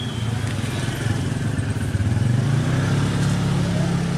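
A motorcycle engine running close by, its pitch rising a little and getting louder about halfway through.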